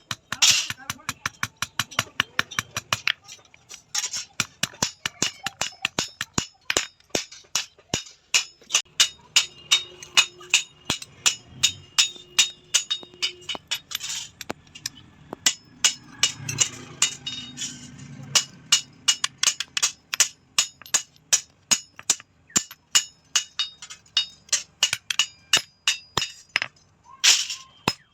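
Blacksmith's hammer striking metal on an anvil in a steady run of blows, about three a second, each with a bright metallic ring.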